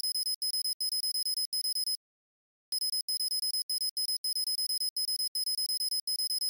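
High-pitched electronic ringing sound effect, ringtone-like, ringing in quick pulses about three a second. It breaks off for under a second about two seconds in, then starts again.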